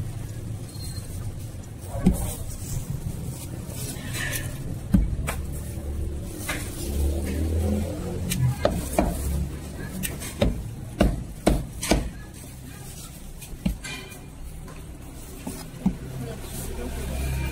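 A Chinese cleaver chopping roast chicken on a plastic chopping board: about a dozen sharp, irregular chops, bunched into a quicker run in the middle. A steady low rumble sits underneath.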